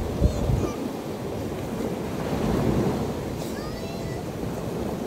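Sea surf breaking on a sandy beach, with wind rumbling on the microphone. A faint voice calls briefly a little after halfway.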